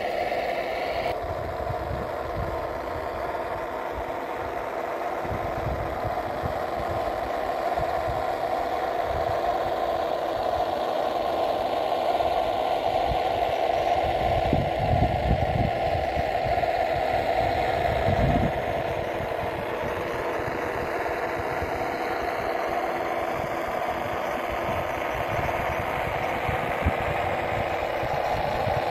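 Simulated truck engine sound from an RC scale GAZ-66's onboard Das Mikro TBS Mini sound module, played through small speakers and running steadily as the model crawls, with bursts of low rumble about halfway through.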